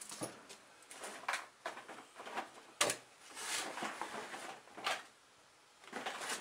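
Scattered handling noises, light knocks and clicks with short stretches of rustling, as a person moves things around a workbench.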